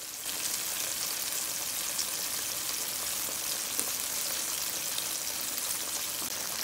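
Flour-dredged chicken breasts frying in hot vegetable oil in a pan: a steady sizzle with fine crackles and pops.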